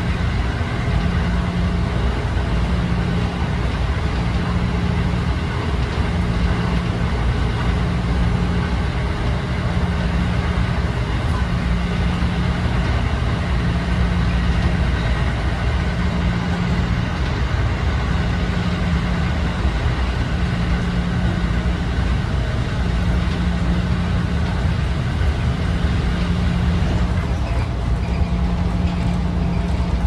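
Running noise inside a JR 211 series electric train car between stations: a steady rumble from the wheels on the rails and the machinery under the floor, with a low hum that comes and goes at an even beat about every two seconds.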